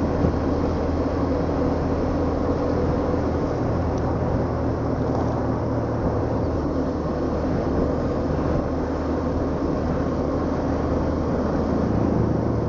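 Motorcycle engine running steadily while riding, heard through a helmet-mounted action camera's mic, with a constant haze of wind and road noise over the engine hum.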